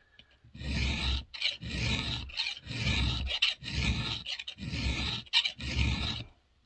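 An eighth-inch round chainsaw file rasping across a chain's cutter in about six even strokes, roughly one a second: a chainsaw chain being sharpened by hand with light, gentle strokes.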